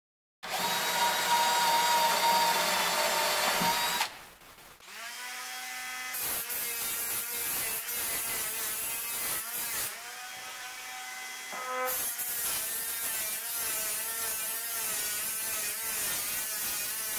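A cordless drill runs at a steady whine for about three and a half seconds, drilling into a plywood deck. After a short break, a small handheld disc sander runs against the wood, its pitch wavering as it is pressed on and eased off.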